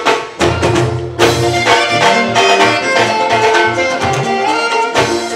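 Live band music: drum strikes keep a steady beat under held melodic notes and a continuous bass line.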